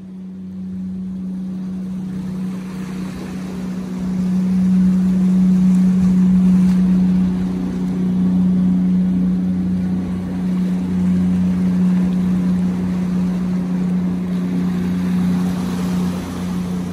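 Motorboat engine running with a steady drone as the boat motors past, growing louder about four seconds in, over water and wind noise.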